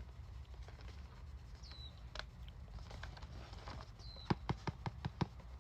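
A parcel being handled and opened: scattered light taps, then a quick run of about six sharp clicks a little past four seconds in.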